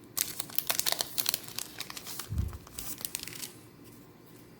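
Foil trading-card booster pack wrapper being crinkled and torn open: a rapid run of crackles that stops about three and a half seconds in, with a dull thump about two and a half seconds in.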